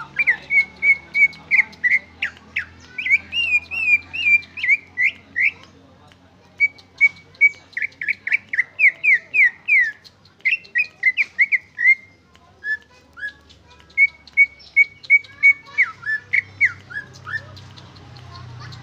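A caged cucak ijo (green leafbird) singing its own natural song, without mimicked calls: rapid phrases of repeated short whistled notes run into quick downward-slurred notes, with brief pauses between phrases, and the song stops shortly before the end.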